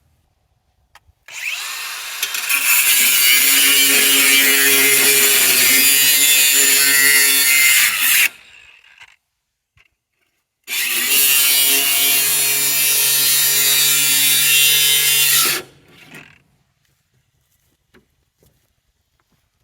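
Angle grinder cutting through metal on an old combine's elevator: two cuts of about seven and five seconds, each starting and stopping abruptly.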